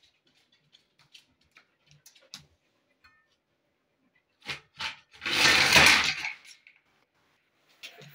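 A cat pushing at a large raw bone in a stainless-steel dog bowl of kibble. There are faint scattered clicks at first, then two sharp knocks a little past halfway and a louder scraping rattle lasting about a second.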